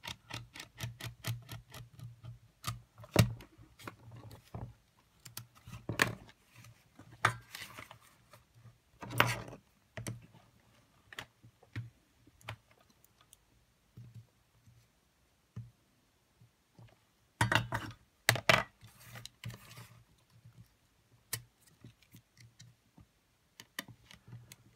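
Small screwdriver and tweezers clicking and scraping against the circuit board and metal-and-plastic chassis of a Sony WM-FX811 cassette player as it is taken apart. A quick run of light ticks at the start, then scattered clicks with a few louder knocks.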